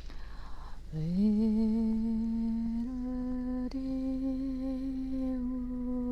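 A person humming one long, steady wordless note as light-language toning. After an in-breath the voice slides up about a second in, holds the note, and steps a little higher near the middle.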